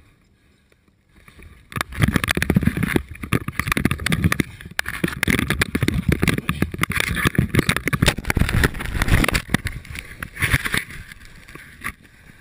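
After a quiet second or so, loud scuffling with many rapid thumps close to the microphone: a moose charging and stomping on a person in snow, knocking the body-worn camera about. It dies down near the end.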